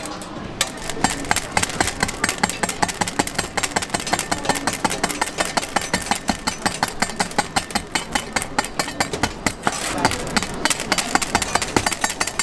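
Rapid chopping of hard candy rods with a cleaver on a stainless steel table: a fast, even run of sharp knocks, several a second.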